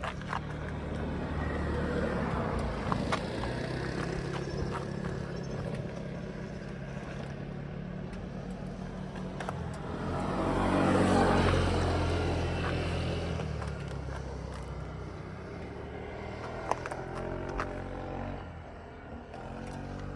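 Ducati Monster 821's stock-exhaust Testastretta L-twin engine running at a steady idle. The sound swells twice, most strongly about halfway through, then settles back.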